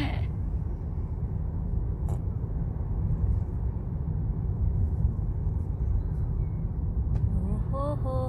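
Steady low outdoor rumble with no passing vehicle standing out, with a couple of faint clicks. A voice begins near the end.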